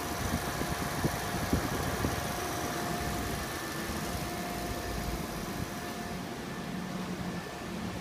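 Air conditioner condenser fans and exhaust fans running together with a steady whirring rush and a faint, steady high whine. A few soft low thumps come in the first couple of seconds.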